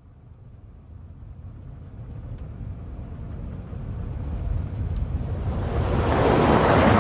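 A rushing, wind-like swell of noise with a low rumble, growing steadily louder across several seconds as the build-up into a pop song's intro.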